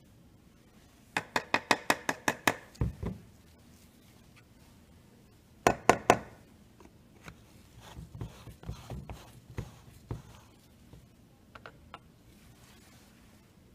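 Handling noises: a quick run of sharp clicks about a second in, a couple of dull knocks, a louder cluster of clicks near the middle, then scattered lighter taps.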